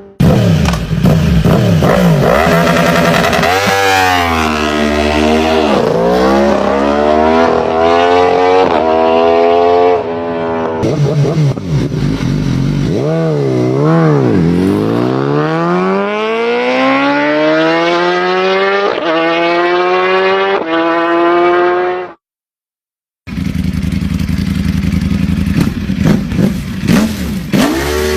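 Motorcycle engine revving and accelerating, its note climbing and falling several times with each rev and gear change, ending in one long rising pull. It cuts off suddenly about 22 seconds in, and after a second of silence an engine runs again with a rougher, choppier note.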